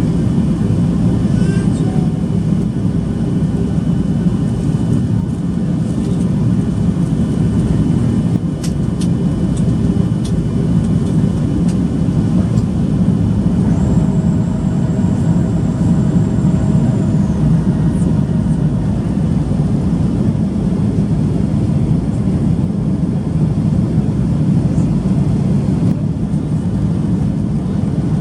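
Steady cabin drone of a Boeing 737-800 in flight, engine and airflow noise heavy in the low range, with a thin high whistle for a few seconds around the middle.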